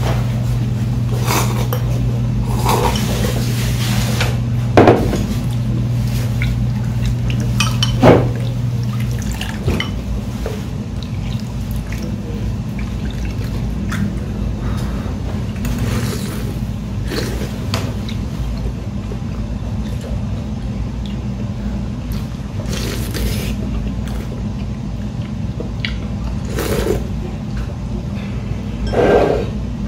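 Metal ladle clinking against ceramic bowls, with ramen broth pouring and dripping as it is ladled from a large bowl into a small one. A steady low hum underneath stops about nine seconds in.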